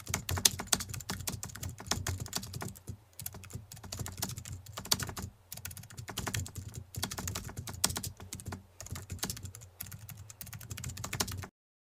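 Typing sound effect: a fast, uneven run of key clicks with a few short pauses, stopping abruptly near the end.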